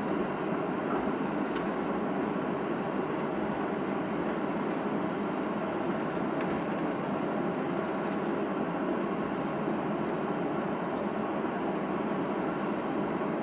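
Steady cabin noise of a Boeing 737 taxiing, heard from a window seat over the wing: the even rush and rumble of the engines at taxi power and the airframe rolling, with a few faint clicks.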